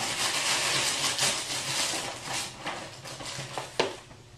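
Crackling rustle of a cardboard cereal box being handled, fading toward the end, with one sharp click near the end.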